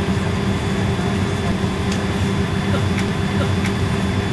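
Steady cabin hum inside a Boeing 777 airliner, a low drone with a thin high whine over it, with a few faint ticks.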